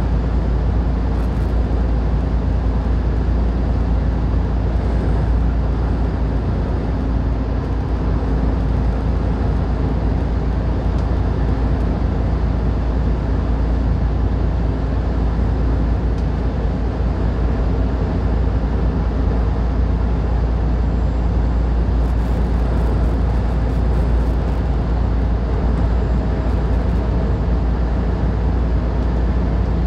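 Semi truck cab at highway speed: steady engine drone and tyre rumble heard from inside the cab, deepest in the low end with a steady hum on top.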